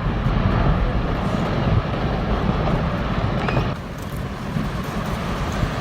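Glacier ice collapsing into water and the wave it raises: a steady, heavy low rumbling noise that eases somewhat about four seconds in.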